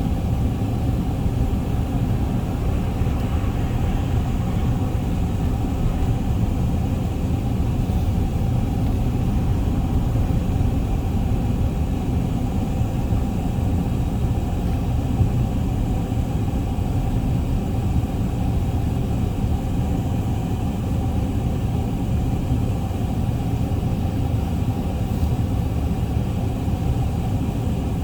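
A steady low rumbling noise that holds an even level without breaks.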